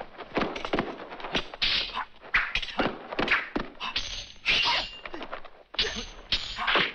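Sword-fight sound effects from a 1970s martial-arts film: a rapid run of sword strikes, swishes and thuds, several a second.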